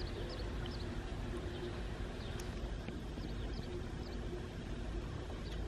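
Outdoor ambience: a steady low rumble and hiss with a few faint, short, high bird chirps scattered through.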